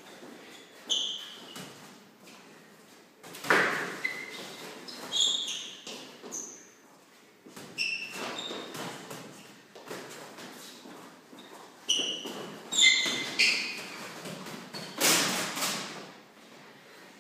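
Boxing gloves landing in light sparring, a string of thuds, the heaviest a few seconds in, around two-thirds of the way and near the end. Mixed among them, trainers squeak sharply and shuffle on the hard hall floor as the two boxers move.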